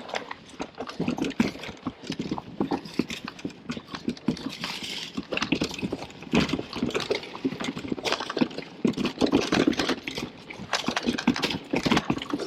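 Mountain bike rattling over a rough downhill trail: a steady run of irregular knocks and clatters as the tyres hit rocks and roots and the chain and frame rattle.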